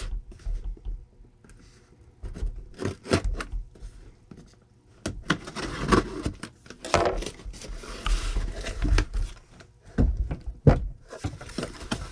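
Cardboard package being opened and unpacked by hand: irregular rips, scrapes and rustles of cardboard and packing, with a few sharp knocks.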